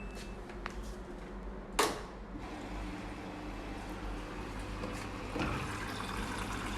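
Washing machine starting its cycle: a single click about two seconds in, then a steady low hum and a hiss of water beginning to run in.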